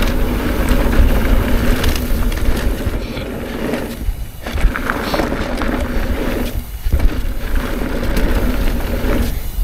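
Electric mountain bike riding a dirt trail: wind buffeting the microphone and tyres rumbling over the ground, with a steady motor hum that briefly drops away three times.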